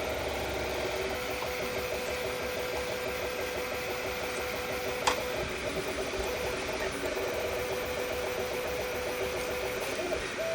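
3D printer's stepper motors whirring in steady, warbling tones as the print head moves back and forth laying down filament. There is a single sharp click about five seconds in.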